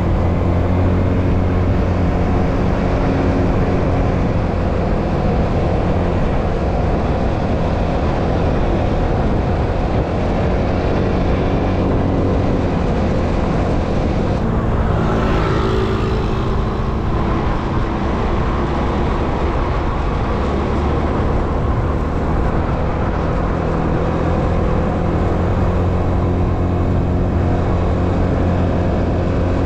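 A motor vehicle's engine running steadily with road noise, a constant low hum. About halfway through, a hiss swells up and dies away over two or three seconds.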